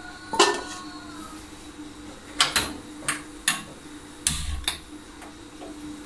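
A steel lid is set down on a clay cooking pot with a clank that rings briefly, followed by several light clicks and knocks as the lid and pot are handled. A faint steady hum runs underneath.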